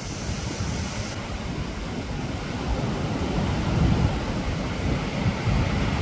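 Rough surf breaking, a steady roar with wind buffeting the microphone, growing a little louder about three seconds in.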